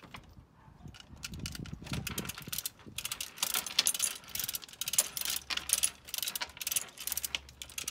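Hand chain hoist being hauled to lift a heavy engine: the chain rattles and the ratchet clicks rapidly, in repeated runs of clicks.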